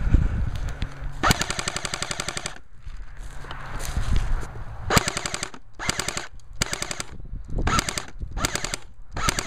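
Airsoft rifle firing on full auto, a fast even rattle of shots: one long burst of over a second about a second in, then several short bursts in the second half.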